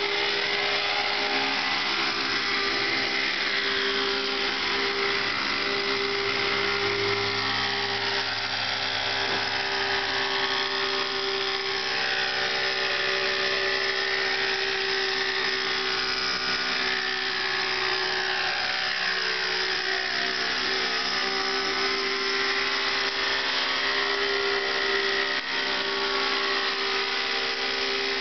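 Thunder Tiger Raptor 50 RC helicopter's .50-size two-stroke glow (nitro) engine running steadily at high revs with the rotors spinning, its pitch wavering slightly as it hovers and manoeuvres.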